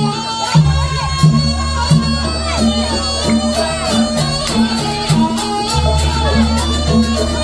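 Live Javanese jaranan gamelan music. A reedy wind instrument plays a bending, wavering melody over a steady beat of drum strokes and low pitched percussion notes. A deep gong sounds about half a second in and again near six seconds.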